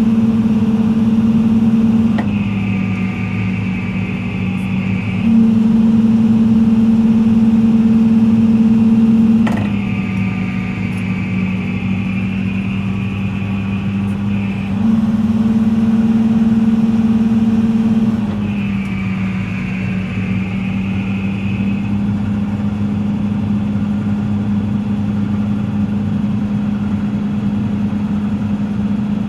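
The Isuzu four-cylinder diesel engine of a Hitachi Zaxis 210-5G excavator runs steadily. Three times the engine note drops in pitch and level as a high hydraulic whine comes in for a few seconds, and the engine settles at the lower note near the end.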